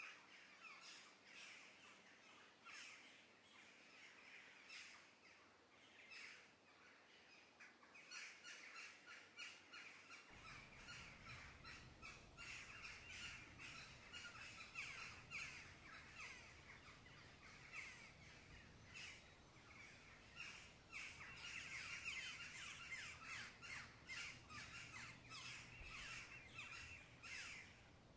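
Thick tomato sauce with pasta bubbling at a boil in a pot, a faint steady run of quick plops and pops. About ten seconds in, the bubbling grows busier and a low hum comes in under it.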